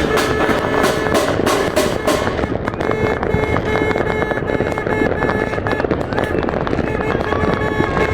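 Fireworks bursting and crackling over loud music. Sharp bangs come thick and fast for the first couple of seconds, then thin out.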